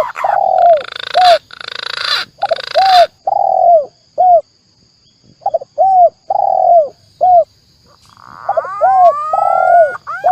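Spotted dove cooing in short repeated arched notes, with a hissy noise under the first few seconds and rising whistling glides of a green pigeon near the end. It is a lure recording for calling both birds.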